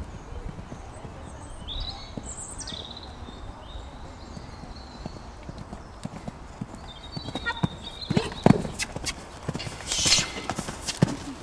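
A horse's hooves cantering on a sand arena, muffled thuds in a rolling three-beat rhythm. The hoofbeats get louder from about three-quarters of the way in as the horse passes close.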